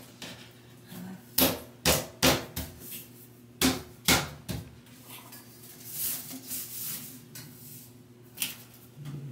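Sharp knocks and clacks from a metal curtain rod being handled while hanging curtains, several in quick succession a second or two in, then softer rustling of the curtain fabric.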